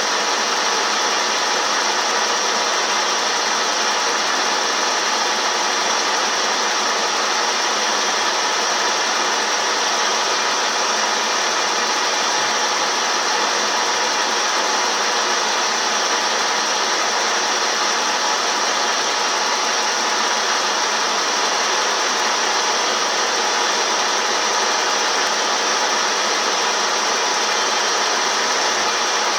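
CNC milling machine running steadily while turning a part: an even machining noise with a high whine over it, unchanging throughout.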